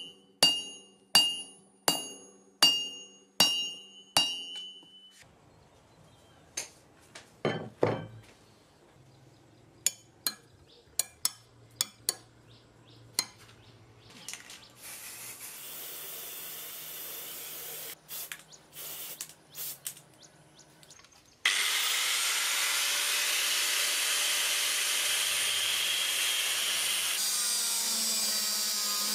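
Hand hammer striking red-hot bearing steel on a steel anvil block, sharp ringing blows a little under a second apart for the first few seconds. Scattered clicks and taps follow, and about two-thirds of the way in an angle grinder with a cutoff disc starts cutting through the steel blank with a loud, steady grinding.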